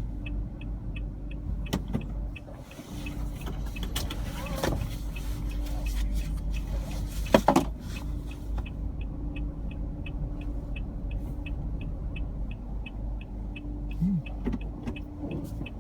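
Car cabin with a steady low engine and road rumble under a regular ticking about twice a second from the turn-signal indicator. A single sharp knock comes about halfway through.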